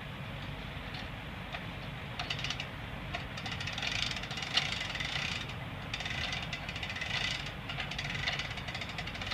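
An engine running steadily under metallic clanking and rattling from the steel parts of a hydraulic cattle squeeze chute being worked by hand; the clatter starts about two seconds in and comes in uneven bursts.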